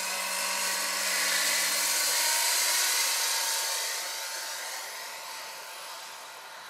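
Electric drive of a large scale RC helicopter (Vario Gazelle SA-341/342 model, 2.36 m rotor) whining high-pitched as it flies past. It is loudest about two to three seconds in, then fades as it moves away.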